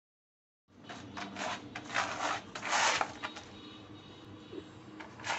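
German Shepherd puppy digging and scratching at a doormat with its front paws: a run of rough scraping strokes starting just under a second in, the loudest about two seconds in, then a quieter spell before the scratching picks up again at the end.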